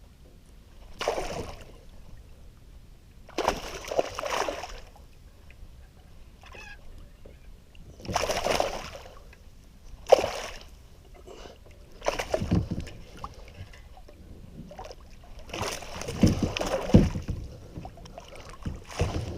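Water splashing and sloshing around a kayak in irregular bursts every one to four seconds; a few of the bursts carry a low thump.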